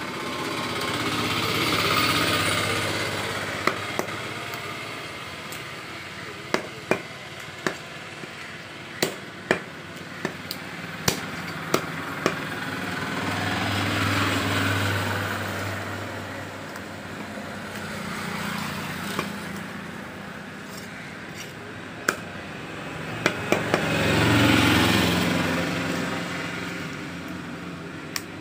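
Sharp knocks of a butcher's cleaver chopping rabbit meat on a wooden log chopping block, coming irregularly and in quick clusters. Under them a motor's drone swells and fades four times.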